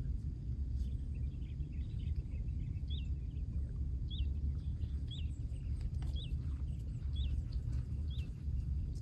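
A small bird repeating a short high chirp about once a second, six times, over a steady low outdoor rumble.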